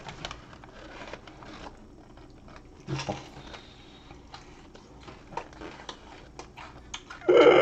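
Mukbang eating sounds: biting and chewing fried chicken and tteokbokki, with wooden chopsticks clicking against the food tub in scattered small clicks. Near the end a short, loud vocal sound breaks in.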